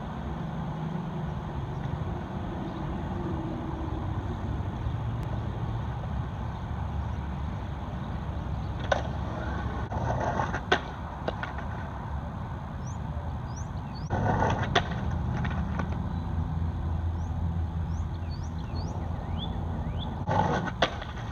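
Steady low outdoor rumble of road traffic, with a few sharp skateboard clacks spread through the second half and several short, high chirps in between.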